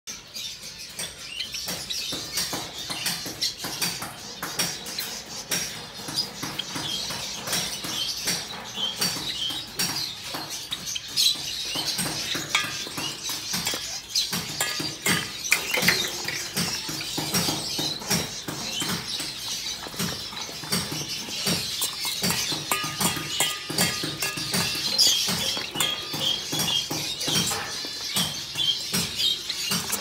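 Sprouted seed soft food being stirred and turned in a bowl: a continuous rustling and scraping with many small clicks. Small cage birds chirp over it throughout.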